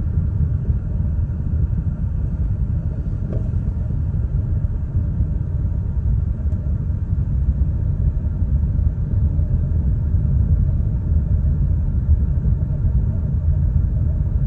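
Car moving along: a steady low rumble of road, tyre and running-gear noise.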